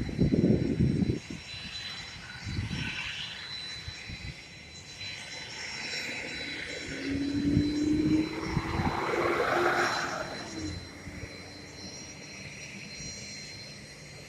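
Aircraft engine running: a swell that builds and fades around the middle, carrying a slowly rising hum, over a steady high whine. Low knocks and rumbles on the microphone in the first couple of seconds.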